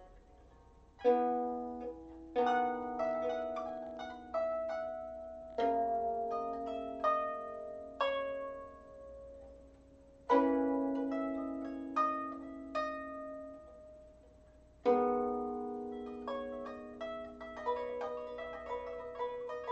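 Harp being plucked by hand: chords struck every few seconds, each ringing and slowly dying away, with single notes picked between them. The notes come quicker and denser near the end.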